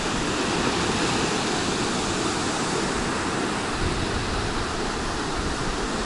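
Sea surf breaking on a sandy beach: a steady, continuous wash of waves.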